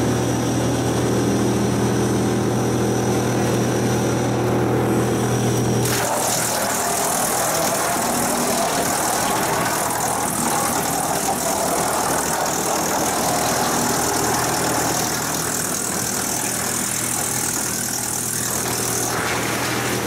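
Drum wood chipper running with a steady machine hum. About six seconds in the hum gives way to a dense, noisy sound of the drum cutting a log fed from the infeed conveyor into chips, which lasts until near the end.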